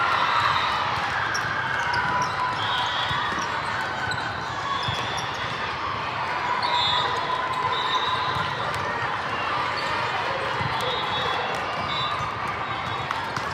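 Busy tournament-hall din: many voices chattering and volleyballs bouncing and being struck on nearby courts, with short high-pitched tones now and then.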